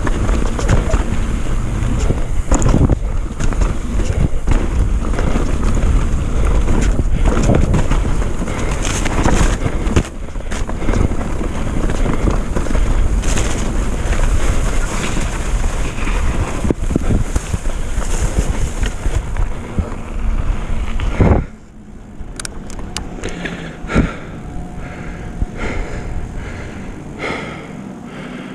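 Mountain bike descending a dirt downhill trail at speed: wind buffeting the camera microphone over the rumble and rattle of tyres and bike on roots and dirt. About 21 seconds in the noise drops suddenly, leaving a quieter roll with light clicks.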